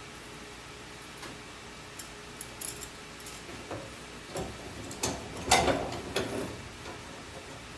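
Scattered clicks and clinks of small metal hardware being handled, the garage door opener's belt and connecting links, sparse at first, then a louder cluster of clattering knocks about five seconds in.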